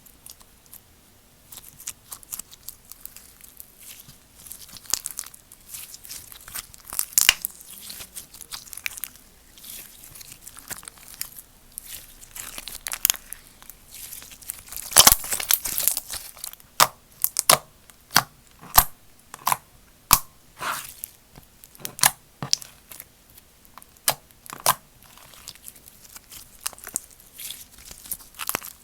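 Slime being squeezed, stretched and poked by hand, giving irregular sharp pops, clicks and crackles. The pops grow louder and closer together about halfway through.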